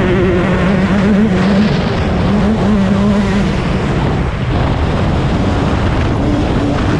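2021 Yamaha YZ125 single-cylinder two-stroke motocross engine under hard riding, its note rising and falling with throttle and gear changes. The throttle backs off briefly about four seconds in before the engine pulls again.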